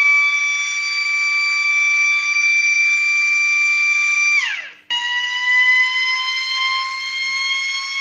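Small red electric motor siren, its spinning rotor sounding a loud, steady wail. Just past halfway the pitch drops sharply and the sound cuts out, then it comes back in a little below full pitch and climbs slowly.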